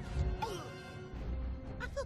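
Orchestral film score, with a heavy crash about a quarter of a second in and a deep low rumble through the second half.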